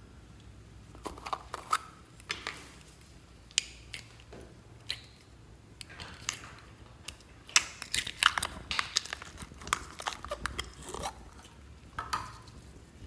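Clear store-bought jelly slime being worked out of its plastic jar and squeezed in the hands: irregular sticky clicks and pops, sparse at first with a few plastic clicks from the jar, then thick and fast in the second half.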